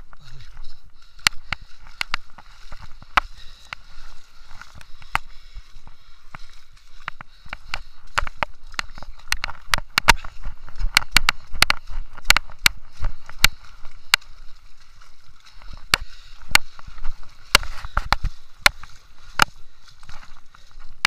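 Running footsteps splashing through shallow muddy water and landing on wet gravel, with sharp clicks coming irregularly two or three times a second over a steady hiss.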